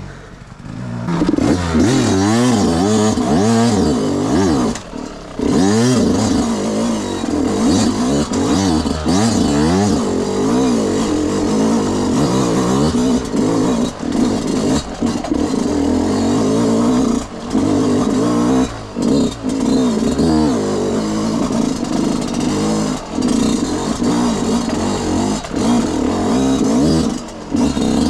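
Yamaha YZ125's single-cylinder two-stroke engine revving hard, its pitch repeatedly rising and falling quickly as it is ridden through the gears. It comes up to full loudness about a second in, with several short drops where the throttle is shut.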